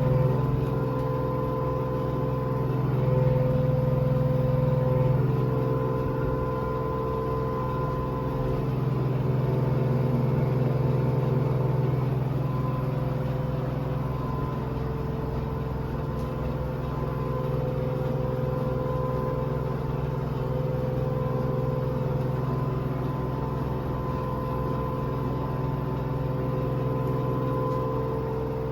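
Washing machine spinning at its maximum speed, a steady motor hum and whine with the level slowly swelling and easing.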